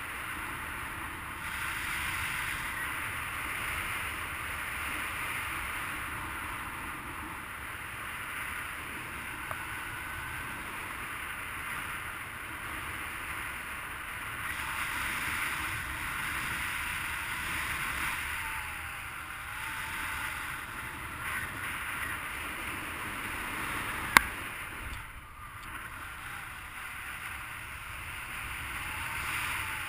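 Steady rush of wind over the microphone of a paraglider in flight, with one sharp click late on.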